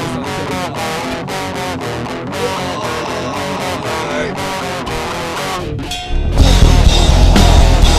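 Hardcore punk band: an electric guitar plays a picked riff with short choppy stops, then about six seconds in the full band comes in much louder with drums, distorted guitars and bass.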